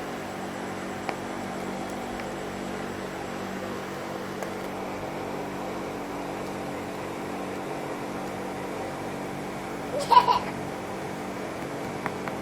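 A steady mechanical hum, with one short, loud squawk from a parakeet about ten seconds in.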